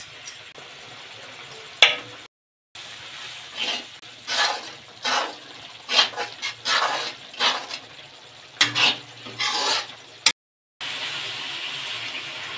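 Steel ladle stirring and scraping curry masala around a steel kadai over a faint sizzle, in repeated strokes about one or two a second. Near the end, water poured from a jug into the pan with a steady rush.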